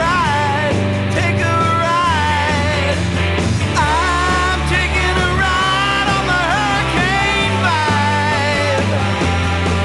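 Alternative rock song playing with no lyrics. A lead melody slides and wavers in pitch over steady bass notes and drums.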